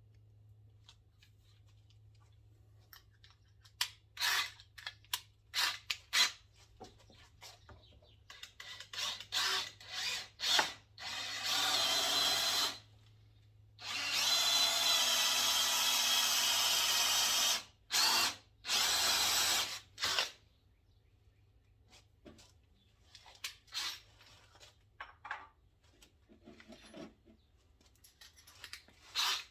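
Power drill run in short trigger bursts, then a longer run of about three and a half seconds and another of about two, working holes being drilled and tapped for bolts.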